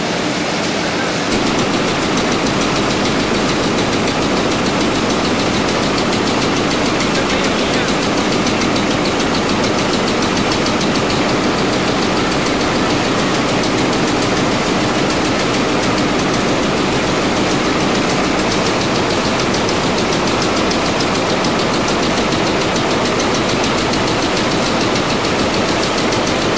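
Three-station high-speed bolt former (cold heading machine) running at about 415 pieces per minute while heading alloy socket cap screws: a loud, steady, rapid mechanical clatter.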